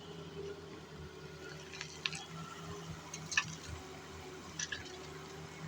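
Doosan excavator engine running steadily at a low hum, with a few short sharp clinks of metal about two, three and a half and four and a half seconds in.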